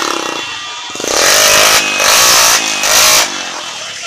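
Motorcycle engines revving, with three loud throttle bursts in quick succession a second or so in, over the running engines of the rally vehicles.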